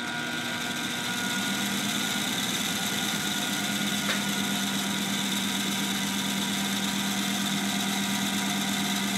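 Big-block Chevy 454 crankshaft spinning on a belt-driven dynamic balancing machine: a steady whirring hum that comes up to speed over the first second or so, with one faint click about four seconds in. The spin is a balance check, measuring how much weight is still out after the counterweight was drilled.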